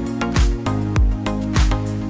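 Background music with a steady beat: a deep drum hit about every 0.6 seconds under sustained chords.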